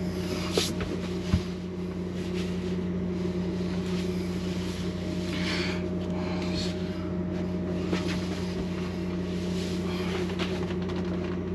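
A plastic composting toilet being shifted and nudged into position on the floor: two sharp knocks in the first second and a half, then a few brief scuffs and scrapes. Under it runs a steady low machine hum.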